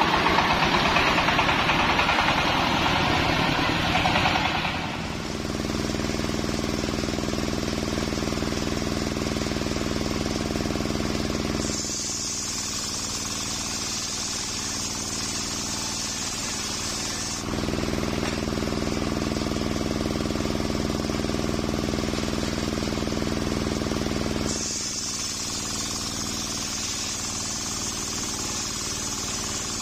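Single-cylinder diesel engine driving a circular sawmill blade, running steadily. Twice the blade cuts along a coconut log, each time adding a high hissing whine for about five or six seconds while the engine note drops under load. During the first few seconds the engine runs louder and rougher as the rig is driven along.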